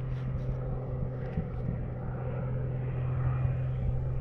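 A 1959 Cessna 172's six-cylinder engine and propeller droning steadily as the plane approaches, growing gradually louder.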